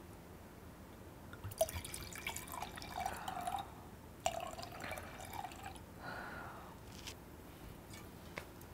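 Liquid poured from a bottle into a wine glass, gurgling and splashing as the glass fills, in two pours with a short break between them, with a few light clicks.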